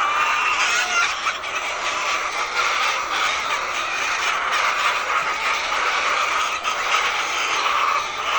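A large flock of laying hens clucking and chattering together, a steady dense din of many overlapping calls.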